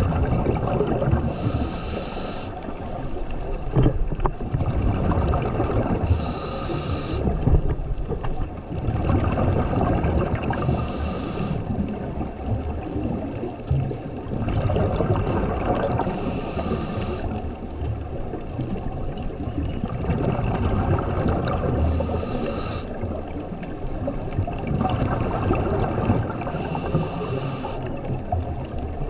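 Scuba diver breathing through a regulator underwater: a short hissing inhale about every five seconds, six in all, each followed by the long bubbling of exhaled air.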